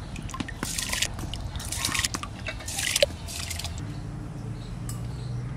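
Handfuls of washed, wet rice being scooped up and dropped into a pot of hot water: four short wet splashes with dripping over the first three and a half seconds, then only a faint low hum.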